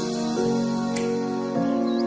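Background music: sustained chords that change about every second, with a single sharp percussive tick about a second in.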